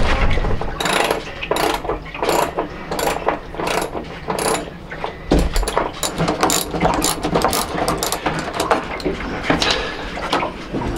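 Hand socket ratchet wrench clicking in quick runs of strokes as it tightens nuts onto the bolts that hold a sailboat traveler track to the deck.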